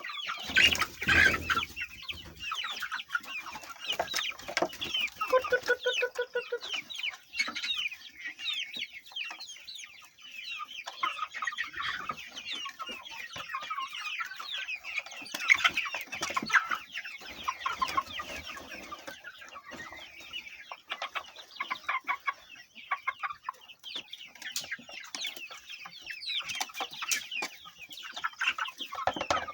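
A large flock of domestic chickens clucking and chattering, many short overlapping calls making a continuous din, with a brief low thump about a second in.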